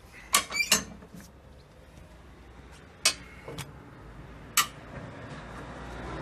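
Sharp metallic clinks of steel tools and parts on a Land Rover Discovery's front suspension as the axle is jacked back up to seat the compressed coil spring: a quick pair at first, then three single clinks spread over the next few seconds.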